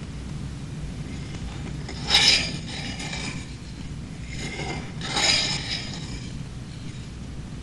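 A long steel blade drawn along a whetstone while being sharpened: two scraping strokes, about two seconds and five seconds in, over a low steady hum.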